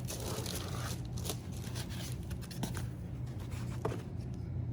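Packaging and parts being handled while unpacking a label printer: soft rustling with a few light clicks, over a steady low room hum.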